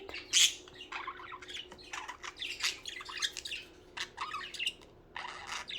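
Pet budgerigars chattering and squawking: many short, scratchy calls at an irregular pace, the loudest about half a second in.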